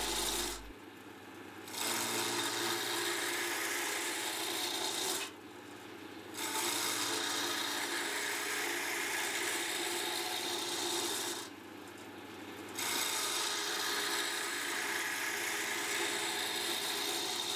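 A gouge chisel cutting a spinning wooden blank on a GMC ML100 wood lathe, roughing it down to a cylinder with an unsharpened tool. It makes a steady rasping scrape in three long passes. Twice it lifts off for about a second, leaving only the lathe's motor hum.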